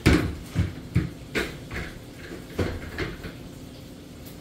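Several irregular knocks and clunks from kitchen items being handled, the first the loudest, spaced over the first three seconds.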